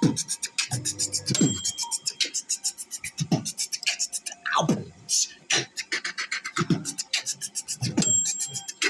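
Beatboxing: a fast run of sharp mouth clicks and hi-hat sounds, punctuated by deep falling kick-drum sounds, with a short high electronic beep about a second in and another near the end.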